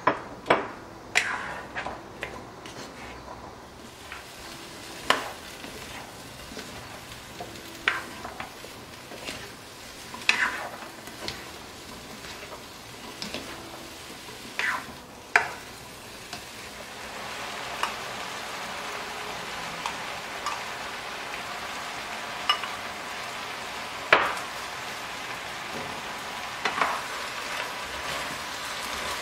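Diced potato, carrot and onion frying and being stirred in a nonstick wok with a plastic spatula, with scattered knocks and scrapes of the spatula against the pan. From about halfway a steady sizzle of frying grows louder underneath.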